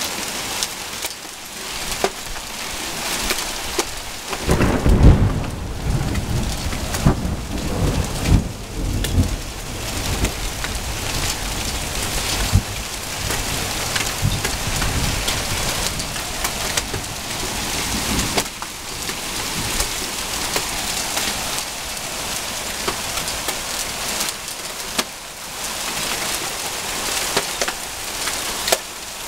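Hailstones pelting asphalt, grass and a garden fence in a heavy hailstorm: a dense, steady patter of countless small impacts. A deep rumble swells about four seconds in and is the loudest part, fading by about ten seconds.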